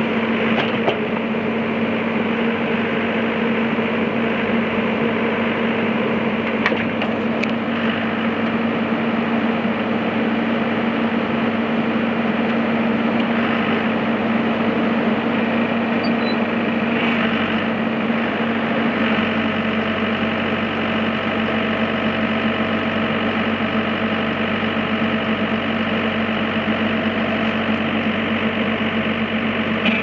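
Komatsu WB140-2N backhoe loader's diesel engine running steadily while the backhoe boom and stick are worked hydraulically. The engine note shifts slightly about two-thirds of the way through.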